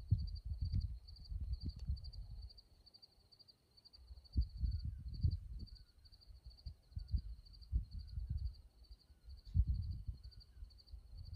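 A cricket chirping steadily, about three to four high chirps a second, under gusts of wind rumbling on the microphone.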